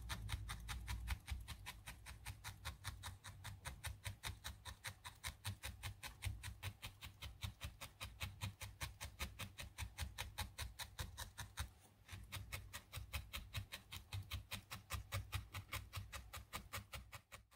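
Felting needle stabbing over and over into wool roughly four to five times a second, each stab a faint crunchy tick, with a short break about twelve seconds in.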